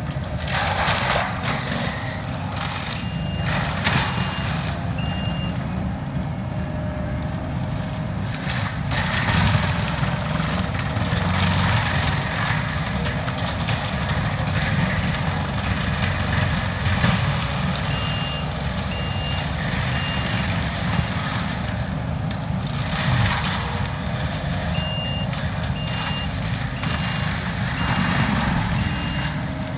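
Kubota SVL compact track loader with a forestry mulcher head running hard, its diesel engine and spinning mulcher drum giving a steady din, with louder crackling surges as the drum chews into brush and trees. Its reversing alarm beeps in three spells as the machine backs up, the last running on to the end.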